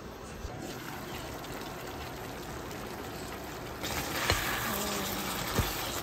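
Spicy braising sauce simmering and bubbling with meat in a stainless steel pot. It gets louder about four seconds in as a wooden spatula stirs it, knocking twice against the pot.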